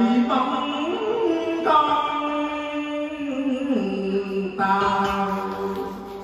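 A man singing Vietnamese ca cổ (vọng cổ-style) into a microphone, drawing out long held notes that step up and down in pitch. The voice grows quieter near the end.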